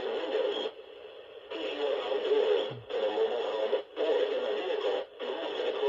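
Muffled, noisy audio from a radio receiver, cutting in and out in stretches of about a second with brief dropouts.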